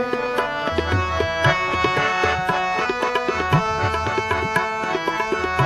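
Instrumental interlude of Sikh kirtan: harmoniums hold the melody while a tabla keeps a steady rhythm, its bass drum thudding beneath the quicker treble strokes.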